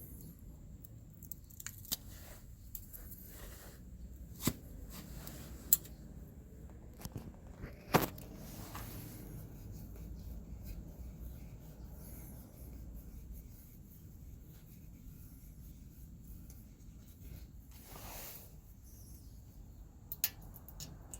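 Scattered sharp clicks, taps and light scrapes of hand work with small tools or parts, the loudest three between about four and eight seconds in, over a low steady rumble.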